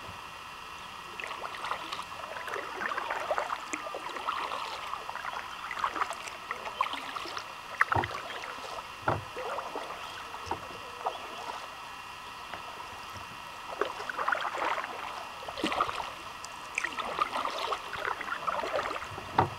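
Kayak paddling: paddle blades dipping and splashing in the water in uneven strokes, with two sharp knocks about eight and nine seconds in.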